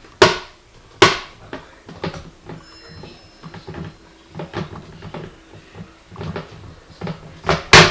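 Kohler plastic toilet seat (model 75758-0) knocking and clacking against the porcelain bowl as it is handled and fitted. Two sharp clacks come about a quarter second and a second in, lighter knocks follow, and another loud pair comes near the end.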